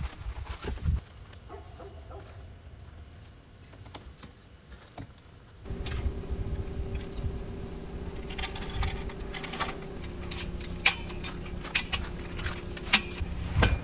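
Irregular clicks, taps and light rattles of camping parasol stand parts being handled and fitted together on gravel. They are sparse at first, busier in the second half, and the sharpest knock comes near the end, over a steady faint hum.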